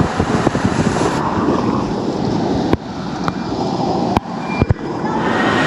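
Water rushing around an inflatable tube sliding through an enclosed waterslide tube and out into the run-out pool, with several sharp knocks in the second half.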